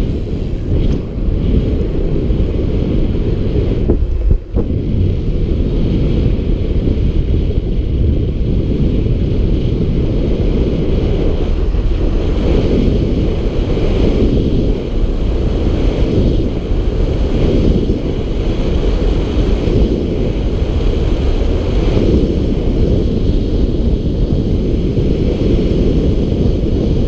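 Wind buffeting the microphone of a camera riding on a moving bicycle: a loud, steady rumble with a fainter hiss above it, briefly dropping about four seconds in.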